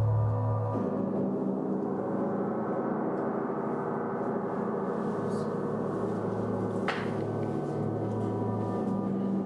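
Large gong played with felt-headed mallets, ringing in a sustained wash of many overlapping tones. Just under a second in, the deepest tone drops away and a higher one takes over. There is one brief light tap near seven seconds in.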